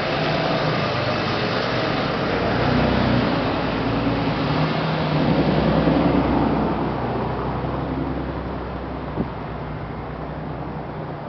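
A trolley-style bus's engine running as it pulls past close by, then a car driving past on a brick street. The rumble swells to its loudest about halfway through and fades away, with one short knock near the end.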